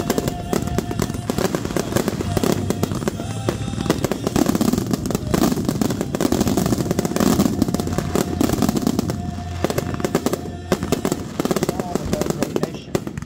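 Fireworks display barrage: aerial shells launching and bursting in rapid, near-continuous bangs and crackles.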